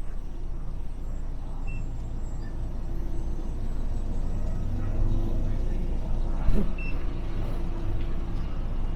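Steady low engine rumble of a vehicle, with a brief thump about six and a half seconds in.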